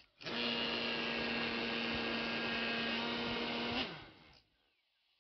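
3D-printed centrifugal blower fan, spun by an electric motor: a noisy, steady hum with a rush of air. Near the end it winds down and stops.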